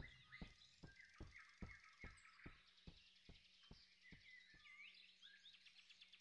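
Faint forest ambience: small birds chirping, with a run of soft ticks about two a second that fade away.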